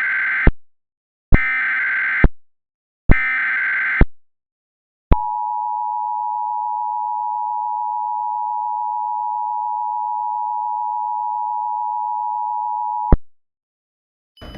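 Emergency Alert System tones: three harsh one-second blasts of digital header data, then the steady two-tone attention signal held for about eight seconds and cutting off suddenly, announcing that an alert message follows.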